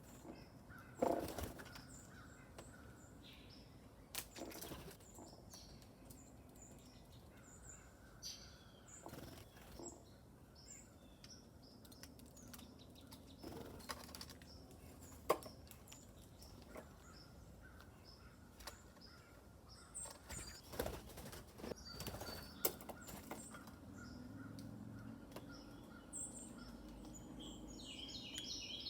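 Small songbirds chirping in short, scattered calls, with wing flutters and light knocks between them, and a quick run of chirps near the end.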